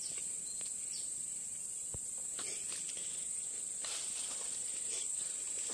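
Steady high-pitched insect chorus from the forest, with a few faint clicks and rustles of movement through dry leaf litter.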